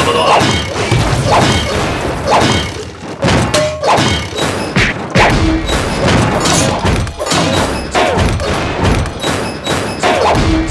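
A rapid run of cartoon sound effects: dense thumps and thuds with the odd crash, and short pitched blips and gliding tones, over music.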